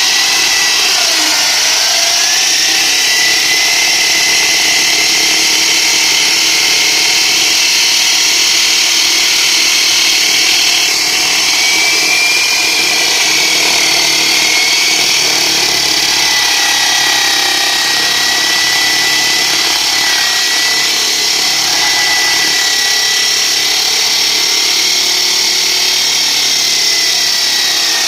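Power saw cutting a concrete slab, running continuously with a loud high-pitched whine over a harsh hiss. The pitch wavers slightly as the blade is loaded, and it drops a little in level about eleven seconds in.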